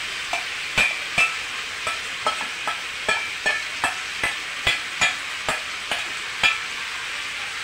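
A metal spoon scrapes and clinks against a stainless steel bowl, with short sharp clicks about two or three a second, as cooked beetroot is scraped into a pan. Under the clicks, hot oil in the pan sizzles steadily.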